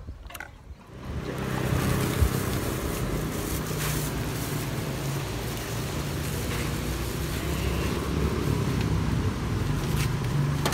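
Steady street traffic noise with a motor vehicle engine running close by, coming in suddenly about a second in. A single sharp knock sounds about two seconds in.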